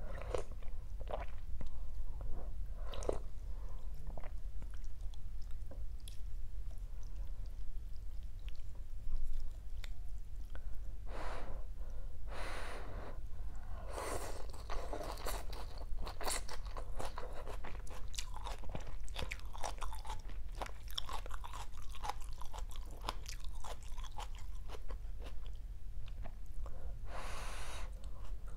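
Close-up chewing and crunching of rice vermicelli with raw lettuce and bean sprouts, with wet mouth clicks. Longer noodle slurps come a little before the middle and again near the end.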